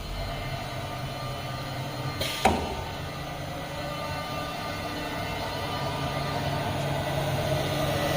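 CNC router machine running with a steady mechanical hum, with one sharp clack and a short falling tone about two and a half seconds in.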